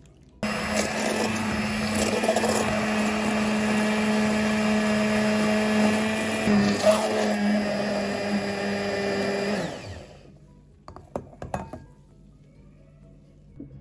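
Immersion (stick) blender running in a glass bowl of eggs and cheese. It starts about half a second in, runs steadily for about nine seconds, then winds down and stops. A few light knocks follow.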